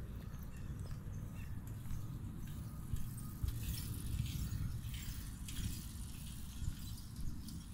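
Low, steady rumble of wind on a phone's microphone, with soft rustling footsteps on grass from about three to five and a half seconds in.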